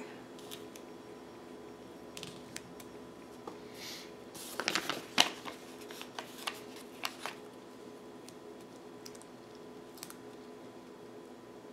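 Sticker sheets and paper being handled on a tabletop: a scatter of light clicks, taps and crinkles, busiest about four to seven seconds in, over a faint steady hum.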